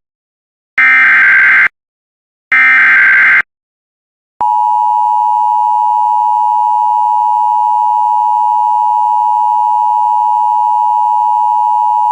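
Emergency Alert System tones: two short bursts of buzzy SAME digital header data, about a second each, then about four seconds in the steady two-tone EAS attention signal (853 and 960 Hz) begins and holds. The tones announce a severe thunderstorm warning.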